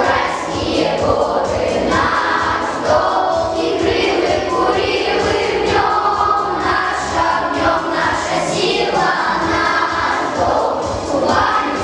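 A children's choir singing a song together in unison, continuous and steady throughout.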